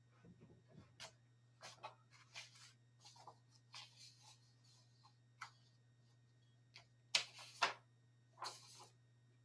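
Quiet room with a steady low electrical hum and scattered soft rustles and taps of someone handling things at a desk, the loudest a pair about seven seconds in.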